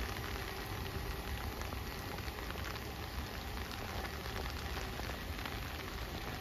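Steady heavy rain falling, with many scattered sharp ticks of individual drops.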